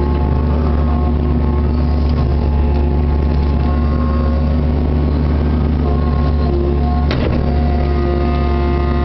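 Kubota KX61-3 mini excavator's diesel engine running steadily under load, with whining tones that come and go as the hydraulic controls are worked, heard from inside the cab. A single sharp clunk about seven seconds in.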